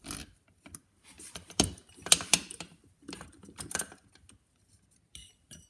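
Metal-on-metal clicking and scraping from an Amberola 30 phonograph mechanism as its carriage rod is worked out and the carriage slid free. The sharpest clicks come one and a half to two and a half seconds in, and a few light metallic rings sound near the end.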